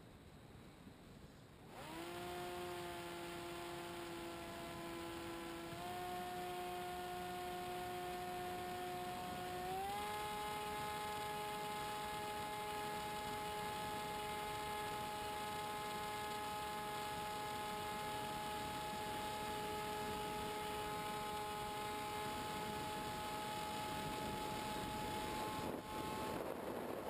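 Electric pusher motor of a Multiplex EasyStar model plane whining as heard from the onboard camera: it starts about two seconds in, steps up in pitch twice as the throttle is opened, then holds steady. Near the end the whine cuts out and a rush of wind noise follows as the plane banks.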